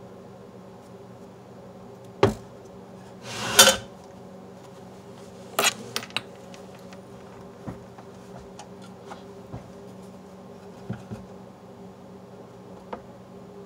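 Handling noises of a Super Technicolor 580 projector being wiped with a cloth and tipped over on a table: a sharp knock, a louder scraping rub just after, then a few quick clicks and scattered light taps over a steady low hum.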